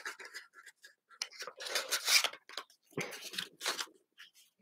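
Small packaging being handled as Framework expansion cards are put back into their little boxes: irregular rustling and light clicking, with the busiest handling about two and three seconds in.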